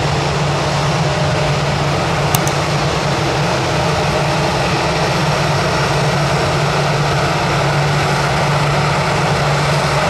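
Steady low engine-like drone with an even hiss, unchanging throughout, and one brief click about two seconds in.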